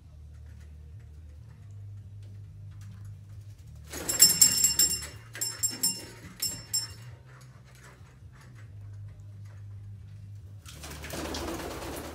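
African grey parrot moving about its rope perches: a loud burst of sharp, ringing sounds about four seconds in, with several separate strikes over about three seconds, then a rustling noise near the end, over a steady low hum.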